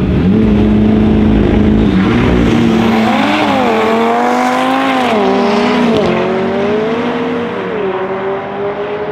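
Modified Audi TT RS's turbocharged five-cylinder, with a TTE700 turbo and decatted Milltek exhaust, held at steady launch revs and then accelerating hard from a launch-control start. The pitch climbs and drops sharply at each of several upshifts and fades as the car pulls away.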